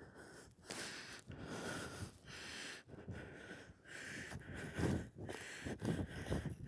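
Irregular rustling and scraping noises, each under a second long, from a knife cutting and pulling through caribou hide and meat while the carcass is being field dressed.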